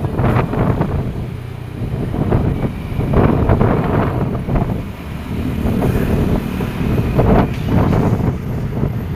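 Road traffic passing close by: a heavy engine rumble that swells and fades twice, with wind buffeting the microphone.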